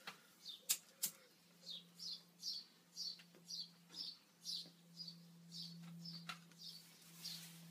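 Two sharp lighter clicks about a second in as a tobacco pipe is lit, then short high bird chirps about twice a second over a low steady hum.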